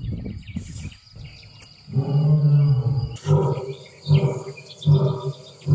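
Male lion roaring: one long low roar about two seconds in, followed by a run of shorter grunting roars a little more than one a second.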